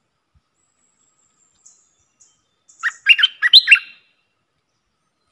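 A bulbul singing: one short phrase of about six quick, clear whistled notes about three seconds in, after a few faint high chips.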